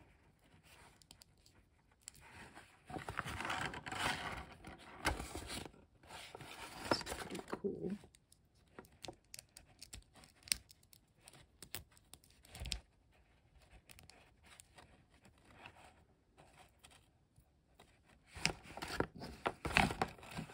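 Hands handling a small plastic BotBots transforming toy, with light clicks and scrapes as its parts are worked. There are louder stretches of rustling from plastic packaging about two seconds in, again around seven seconds, and near the end.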